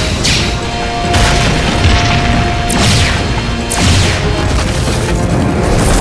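Cartoon action sound effects: several energy-blast shots with booms, one every second or so, over background action music.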